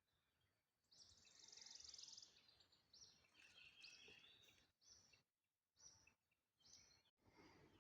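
Faint birdsong: a run of short high chirping phrases, with a buzzy trill about a second in.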